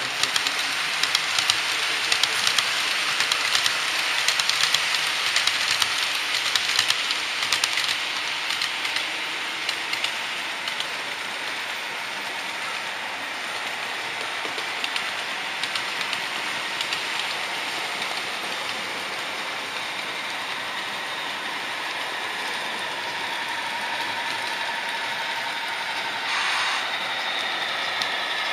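HO-scale model trains running on the adjacent track: a passing train's wheels click rapidly over the rail joints over a rushing hiss, the clicking thinning out after several seconds. Near the end a whine with several tones comes in as another model train runs alongside.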